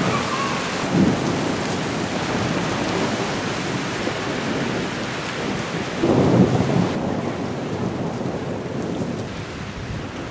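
Heavy rain falling steadily during a thunderstorm, with thunder rumbling: a short rumble about a second in and a louder, longer one about six seconds in.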